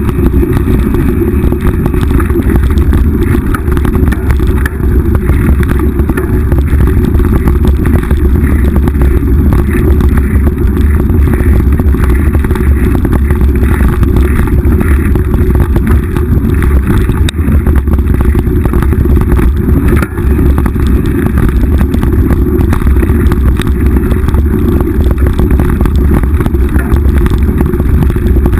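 Mountain bike riding fast down rough dirt singletrack, picked up by a GoPro mounted on the bike: a loud, steady rumble of wind and trail noise, with the constant rattle of the bike over the ground.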